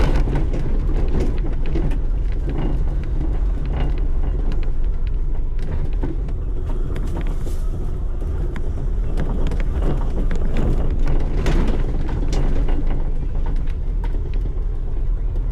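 Off-road vehicle engine running steadily under way on a rough trail, a constant low rumble with frequent knocks and rattles from the bumps.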